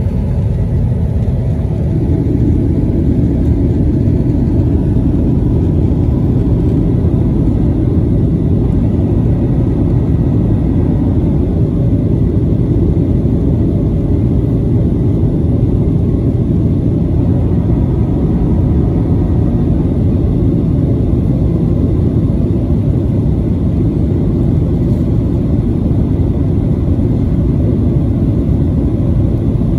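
Steady cabin noise inside a Boeing 737-900ER in flight: a deep, even rumble of airflow and its CFM56-7B turbofan engines, with faint steady whine tones above it. A low tone sinks in pitch and fades during the first two seconds.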